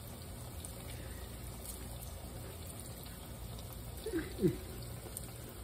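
Steady faint room hiss and low hum while a woman chews a bite of fried vegetable. About four seconds in comes a brief falling "mm" of approval as she tastes it.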